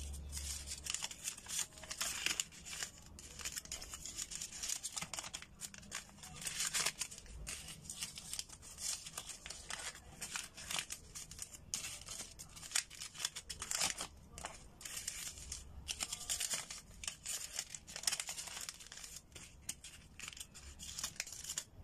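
Paper banknotes, folded into small tight bundles, being unfolded and smoothed out by hand: irregular crinkling and rustling of paper.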